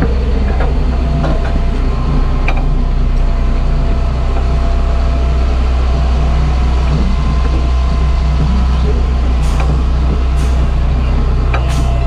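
Heavy tow truck's diesel engine running with a steady low drone, with a few light clicks and a couple of short hissing bursts near the end.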